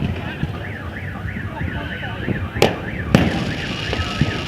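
Fireworks going off, with two sharp bangs about two and a half and three seconds in over a steady low rumble, while a car alarm warbles up and down about three times a second through the first three seconds.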